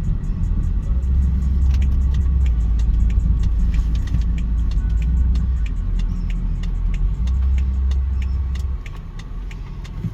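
Music with a deep bass line and fast, even ticks like a hi-hat beat; the bass drops away near the end.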